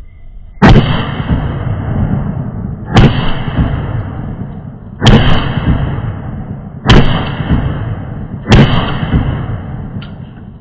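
Five gunshots, about two seconds apart, each followed by a long rolling echo that dies away before the next shot.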